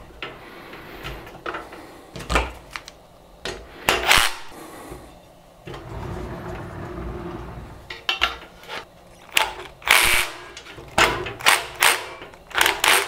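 Aluminium extrusions and a sheet-metal side plate knocking and clicking against each other as they are fitted and screwed together: a string of separate sharp knocks, coming thicker in the second half.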